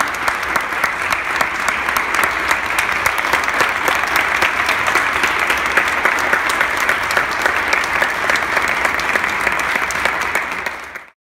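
Audience applauding steadily, a dense mass of many handclaps; it cuts off abruptly near the end.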